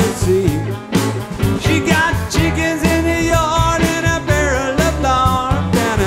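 Live band playing a country-rock song: Telecaster-style electric guitar and drums under a sung lead vocal.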